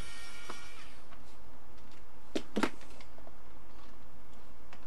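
Small electric screwdriver's motor whirring and winding down, stopping about a second in. Then two sharp clicks close together from the plastic charger housing being handled, and another click near the end.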